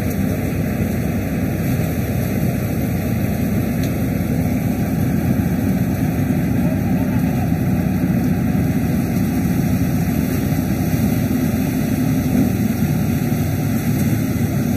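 Paddy threshing machine running steadily while rice sheaves are fed into its drum: a dense, unbroken low drone.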